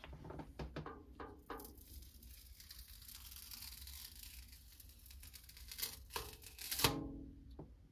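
A yellow sticky fungus gnat trap is peeled slowly off a glass cabinet pane, giving a long crackling, tearing hiss as the adhesive lets go. A few light taps come before it, and a sharp click comes near the end.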